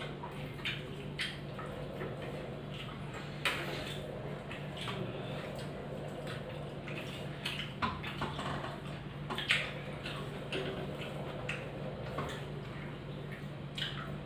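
People eating watery curd rice by hand from steel plates: wet squishing as fingers mix the rice, chewing smacks, and scattered clicks with the odd light clink of steel, over a steady low hum.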